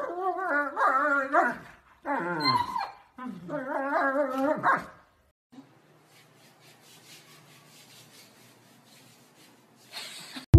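German shepherd dogs vocalizing while play-wrestling: three runs of wavering, whining howls over the first five seconds. After that only faint background noise remains.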